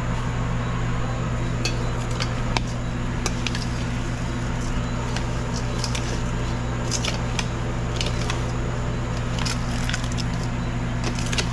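A utensil clinking and scraping against a bowl while ingredients are stirred, with scattered sharp clicks. Under it runs a steady low hum from the kitchen range.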